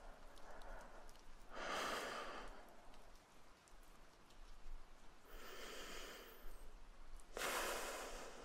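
A man's slow, deep breaths close to the microphone, three in all, about one every three seconds, over a faint steady rain backdrop.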